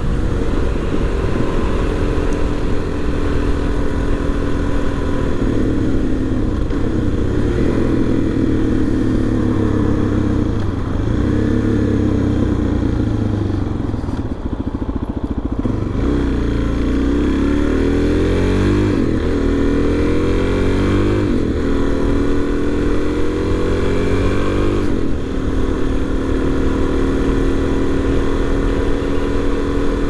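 Single-cylinder four-stroke engine of a 2019 Suzuki DR-Z400 motorcycle running under way. It is steady at first and eases off about halfway. Then its pitch climbs and drops three times as it accelerates up through the gears, and it settles to a steady pitch for the last few seconds.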